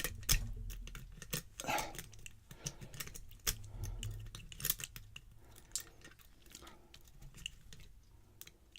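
Irregular small metallic clicks and scrapes of a lock pick and tension wrench working inside a Trimax TRP170 stainless steel disc padlock, with a low handling rumble during the first half.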